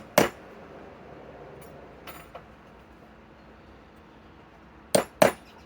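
Sharp clicks and knocks of something being handled: one just after the start, two faint ticks around two seconds in, and a pair of sharp clicks close together near the end, over a faint steady hum.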